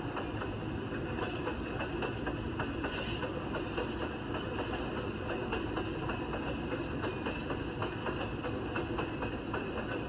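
A train running along the track: a steady rumble with many small, irregular clicks and rattles from the wheels and cars.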